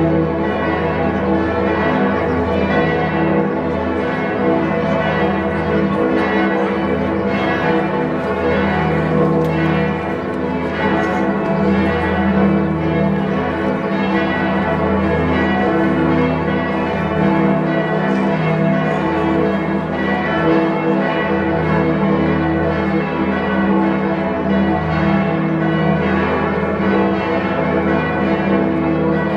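Frankfurt's Great City Peal (Großes Stadtgeläut): many church bells of the city-centre churches, the cathedral's among them, swinging and ringing all at once in a dense, continuous peal with deep bells underneath.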